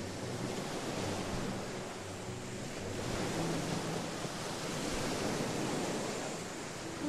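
Small waves breaking and washing up a sandy shore, the surf swelling and easing off over a few seconds.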